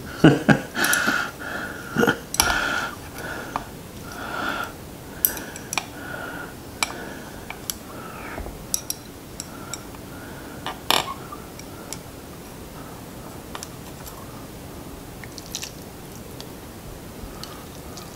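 Plastic chopsticks stirring wet ramen noodles in a ceramic soup mug, clicking and scraping against its sides. The stirring is busiest in the first six seconds, then thins to scattered clicks as the noodles are lifted.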